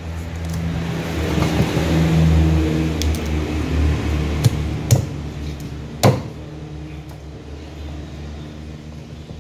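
A cleaver chopping pufferfish on a wooden chopping block, a few sharp knocks with the loudest about six seconds in. Under the chops runs a steady low motor hum that swells over the first couple of seconds and then eases off.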